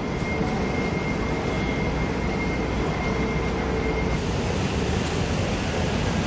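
Steady city street noise: a continuous rumble of road traffic.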